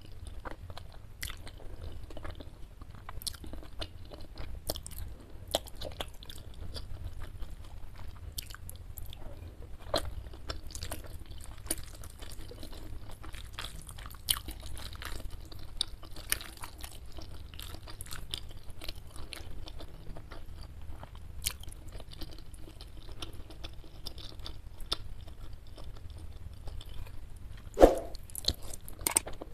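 Close-up mouth sounds of eating spicy chicken noodles: chewing and slurping noodles, with irregular wet clicks and smacks. A single short, louder sound comes near the end.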